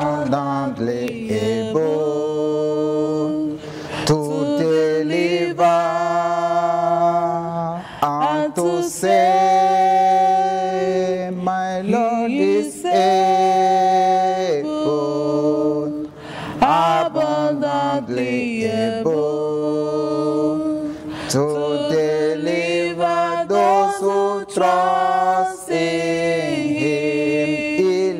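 A man singing a slow worship song solo, holding several long, steady notes between shorter phrases that rise and fall.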